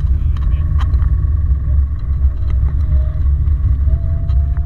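Subaru STI driving at steady speed, heard from inside the cabin: a steady low rumble of engine and tyre noise, with a faint whine that rises slightly near the end.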